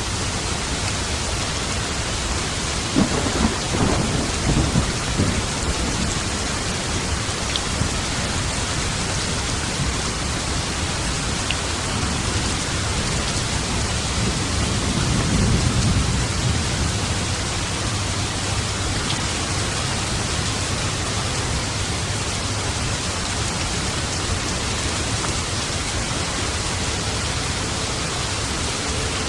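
Steady rain with thunder: a crackling clap of several sharp cracks about three seconds in, and a low rolling rumble that swells and fades around the middle.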